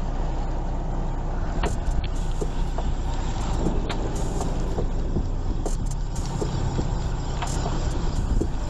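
Boat engine running steadily, a low rumble, with scattered sharp clicks and knocks over it.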